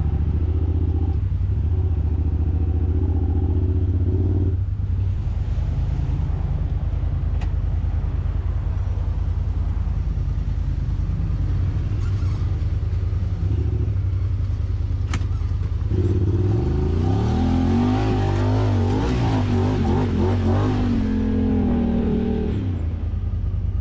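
Side-by-side UTV engine running steadily on the trail. In the last third it revs up and down, its pitch rising and falling for several seconds. A few sharp knocks stand out.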